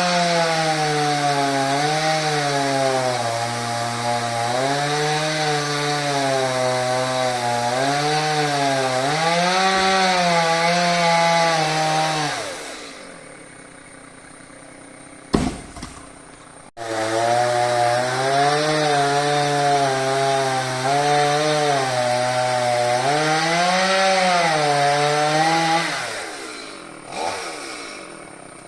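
Two-stroke chainsaw running at high revs and cutting wood, its pitch dipping and recovering as it loads in the cut. It does this in two long runs, dropping back to a quiet idle about halfway through and again near the end.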